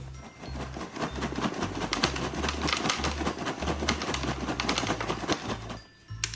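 Microwave popcorn kernels popping in rapid, dense succession inside the microwave, cutting off shortly before a sharp click near the end.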